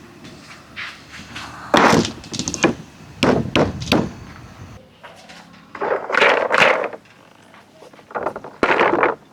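Marbles rolling and clattering along a wooden marble-run track, in four bursts of quick knocks and clacks: about two seconds in, around three to four seconds, around six seconds, and near the end.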